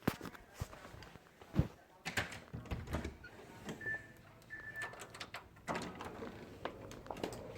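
Irregular clicks, knocks and rustling in a small room, with two short high beeps about four seconds in.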